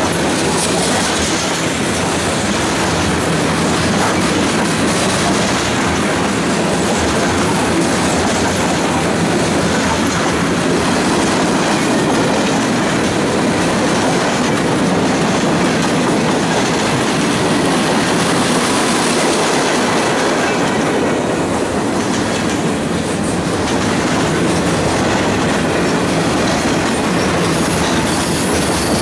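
Freight train cars (covered hoppers, coil steel cars and boxcars) rolling past close by: a loud, steady rolling noise of steel wheels on the rails.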